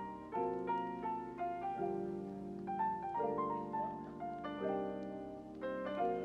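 Background music: a piano-like keyboard melody of short notes over sustained chords that change about every second and a half.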